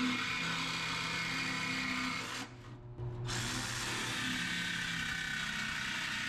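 Jigsaw with a Bosch T118E 14–18 TPI metal-cutting blade sawing through sheet steel, a steady rasping buzz of blade on metal. The saw stops briefly about two and a half seconds in, then cuts on.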